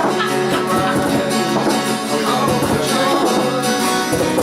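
A live rock band playing, with electric guitar to the fore.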